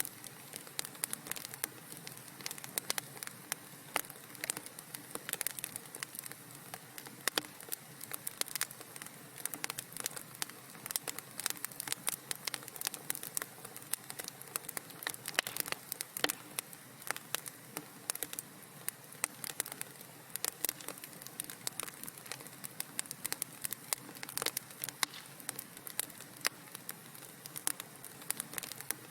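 Wood fire crackling in a fireplace: dense, irregular pops and snaps over a soft, steady hiss.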